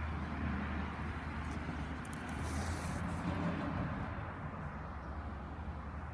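Steady low rumble of outdoor background noise, with a brief hiss about two and a half seconds in.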